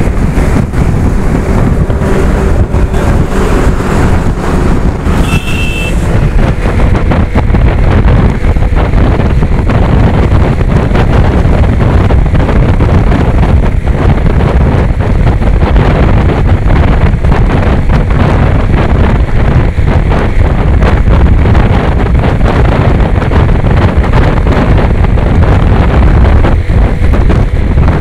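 Steady wind buffeting on the microphone and road noise from a motorcycle riding at speed on a highway, with a short high beep about five seconds in.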